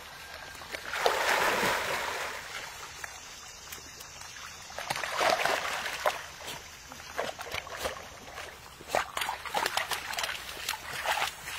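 Labrador puppies splashing in shallow pond water at the grassy edge. A long splash comes about a second in and another around five seconds, then a quick run of short splashes as they paddle and scramble out onto the bank.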